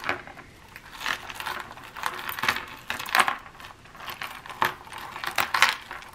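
Loose costume jewelry clinking and rattling as pieces are picked through by hand: an uneven run of small metallic clicks and jingles.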